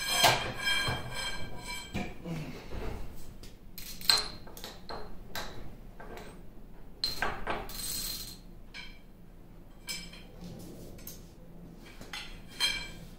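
Socket wrench and other steel hand tools clinking and knocking against the cast-iron lathe carriage as the apron bolts are loosened. A ringing metallic clang right at the start, then scattered sharp clicks and knocks.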